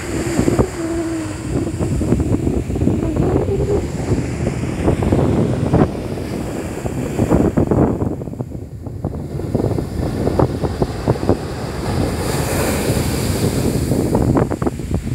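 Sea surf breaking on a sandy beach, heavily buffeted by wind on the microphone. A hissing wash of foam up the sand swells near the end.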